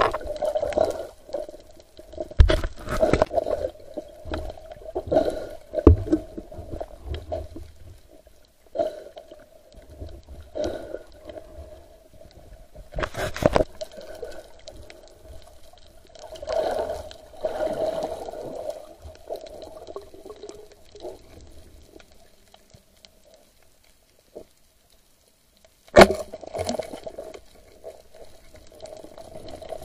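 Water sloshing and gurgling heard through an underwater camera, muffled, over a steady hum, with a few sharp knocks.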